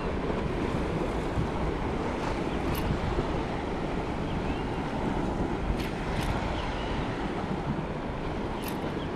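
Wind blowing across the microphone over water lapping, a steady rushing noise, with a few short faint clicks.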